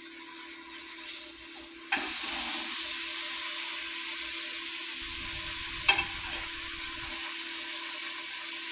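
Chicken breasts frying in a pan: a steady sizzle that starts abruptly about two seconds in, with a single sharp clack of utensil or pan near the six-second mark.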